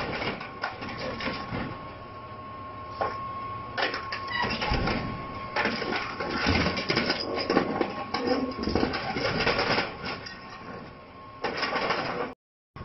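Excavator tearing into the aluminium fuselage of a Yak-42 airliner being scrapped: irregular crunching and clattering of metal over a steady high tone. The sound drops out briefly near the end.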